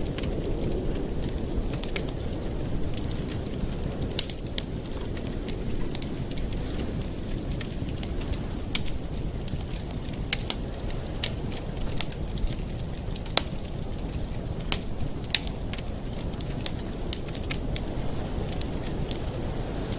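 Campfire burning with a steady low rush of flame, and frequent sharp, irregular crackles and pops from the burning wood.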